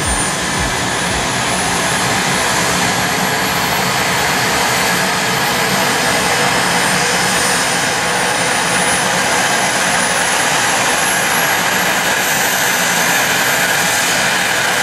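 Eurocopter EC135 twin-turbine helicopter running up on the ground before take-off: its main rotor spins up while a high turbine whine rises steadily in pitch. A slow low beat from the rotor blades can be heard at first and blurs into a steady rush as the rotor speeds up.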